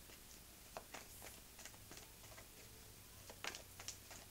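Soft, irregular clicks and taps of an oracle card deck being shuffled by hand, with a cluster of louder ones about three and a half seconds in.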